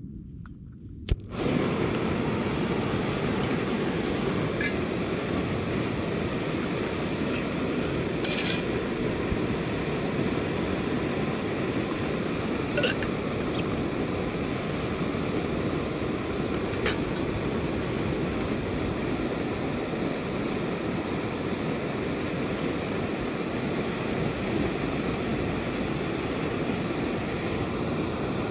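Small screw-on camping gas stove on a gas canister lit with a click about a second in, then the burner hissing steadily at full flame. A few faint clinks over it.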